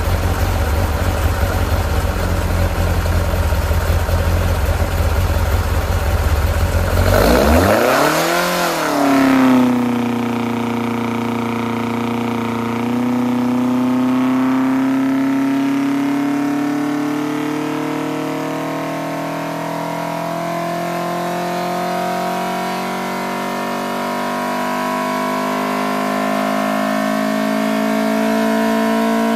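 Ford Pinto 2.1-litre four-cylinder race engine on Weber carburettors and an Ashley three-piece exhaust manifold, running loudly on an engine dyno. About eight seconds in it revs up and drops back quickly, then the revs climb slowly and steadily under load.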